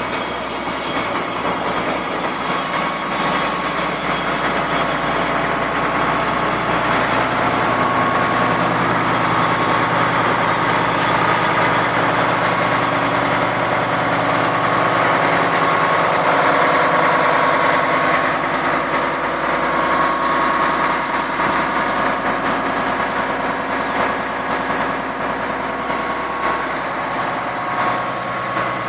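Komatsu D85EX-15E0 crawler bulldozer's diesel engine running steadily under work, getting a little louder about halfway through and easing off again.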